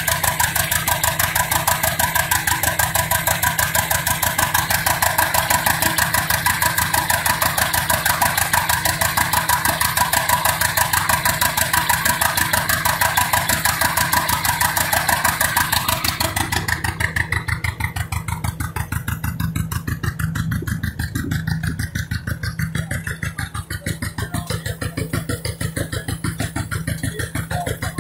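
Hart-Parr 18-36 tractor's two-cylinder engine running steadily with an even exhaust beat while belted to a prony brake dynamometer. About two-thirds of the way through, the sharper clatter falls away and leaves a duller, lower beat.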